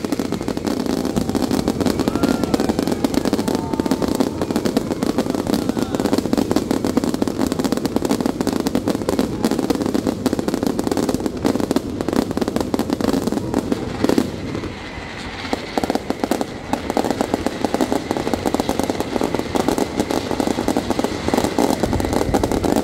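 A fireworks display firing continuously: a dense, rapid run of bangs and crackles from shells and crackling effects, easing briefly about two-thirds of the way through before picking up again.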